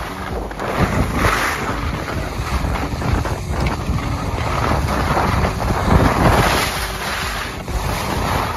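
Wind buffeting a microphone carried by a skier going downhill: a steady low rumble, with skis scraping and hissing over packed snow in swells every second or two.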